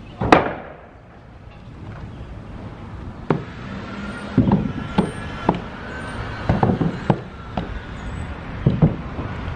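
Lumber boards dropped onto a porch deck with one loud wooden crash and clatter. After that come a series of uneven knocks and thuds as rubber boots and a plastic bucket go up wooden steps.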